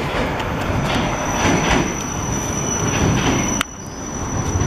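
Train noise on the rails: a dense rumble with a steady high-pitched whine over it. The rumble drops off suddenly about three and a half seconds in, while the whine carries on.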